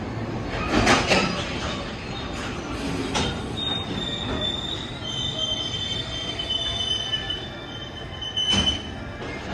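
Container freight train rolling past, its wheels giving a high, steady squeal from about three and a half seconds in until near the end. Two loud clunks stand out over the running noise, about a second in and again near the end.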